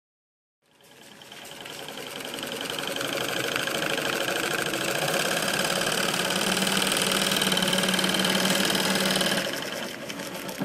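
SAHL CM-1430 diver-suit blindstitch machine running, stitching a seam in neoprene wetsuit fabric. The fast, steady clatter of the stitching mechanism comes in about a second in, grows louder over the next couple of seconds, and drops off near the end.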